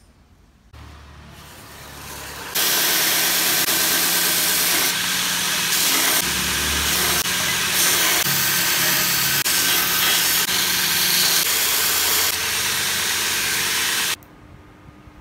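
Belt grinder starting up with a low hum, then its abrasive belt grinding the pinned handle scales of a knife: a loud steady hiss from about two and a half seconds in that cuts off suddenly near the end.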